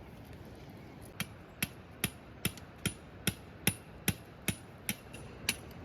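Steady hammering: about a dozen sharp, evenly paced strikes, roughly two and a half a second, starting about a second in.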